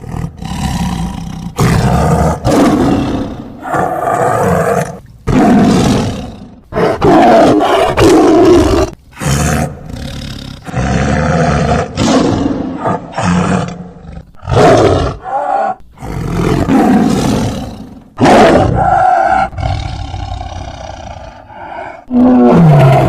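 A string of tiger roars, more than a dozen loud calls of about half a second to two seconds each, cut together with abrupt breaks between them.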